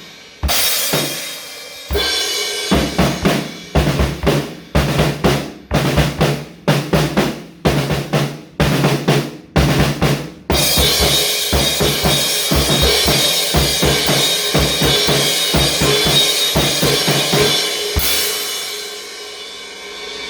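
Music led by a drum kit: a run of hard, evenly spaced drum hits, then from about halfway a sustained ringing wash over the drumming that fades away near the end.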